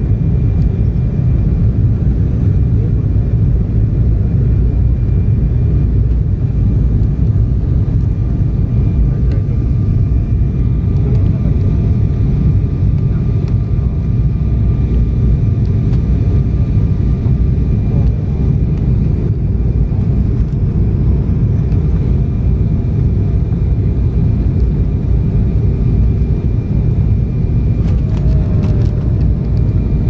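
Jet airliner cabin noise over the wing of an Embraer E190: a steady, loud low rumble of engines and airflow with faint steady whining tones above it. A few faint clicks come near the end.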